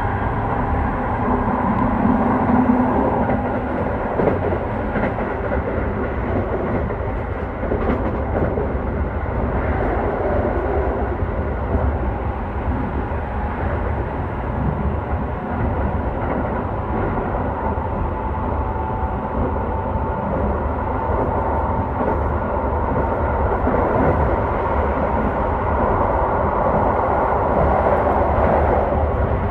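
Running noise of a Keio 5000 series electric train at speed, heard from inside a car through the window glass: a steady rumble of wheels on rail that grows a little louder near the end.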